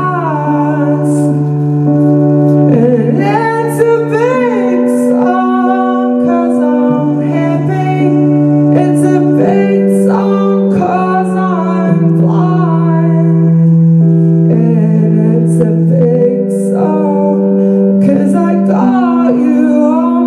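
Electric keyboard playing slow, held chords that change every couple of seconds, with a woman's wordless vocal gliding over them in short phrases.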